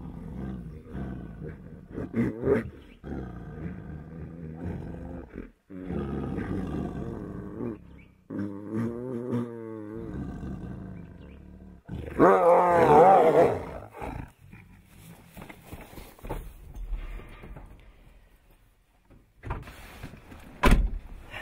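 Tigers vocalizing during mating: a series of deep, wavering growls and roars with short breaks between them, the loudest about twelve seconds in, then quieter sounds and one sharp click near the end.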